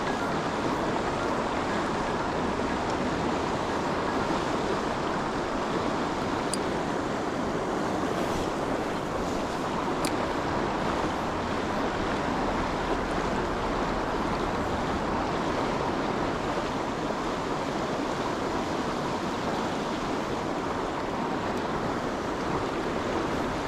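A woodland stream running steadily, an even rushing of water over rocks.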